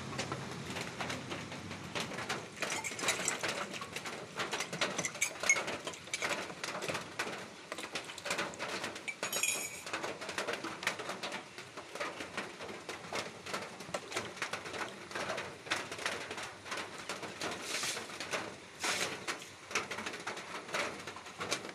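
Irregular crackling and clicking handling noise, with a few short bird calls in the background.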